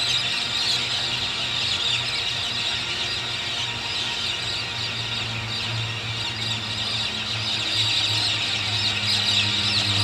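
Raucous chorus of a large flock of birds, many overlapping chirps and calls at once, over a low steady hum that gains a second, higher tone near the end.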